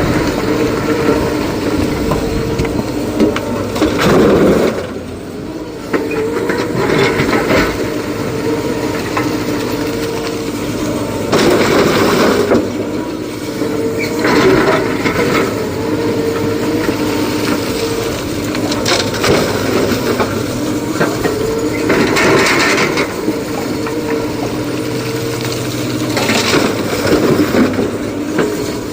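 Excavator's diesel engine working under load with a steady hum, while rock and earth crash and rattle into a dump truck's steel body every few seconds as it is loaded.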